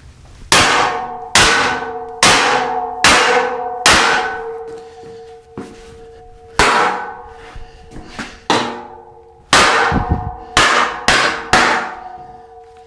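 Hammer blows on steel, about a dozen strikes, each leaving the metal ringing. Five come at a steady pace, then after a pause a quicker, uneven run follows.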